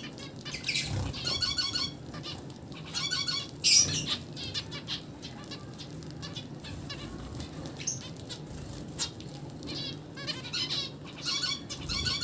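A flock of zebra finches calling in bursts of short, rapid high calls, with wing flutters and scattered small clicks between the bursts. The loudest burst comes about four seconds in, and the calling picks up again near the end.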